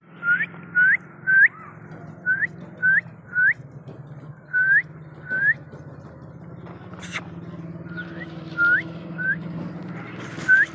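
A person whistling short, rising chirps, mostly in quick runs of two or three, with a pause in the middle and the later notes fainter.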